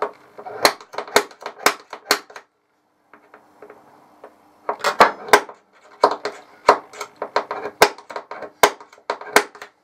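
Centre punch marking hole positions on a mild steel flat bar before drilling: a run of sharp metallic taps about two a second, a pause of about two seconds, then a second, longer run of taps.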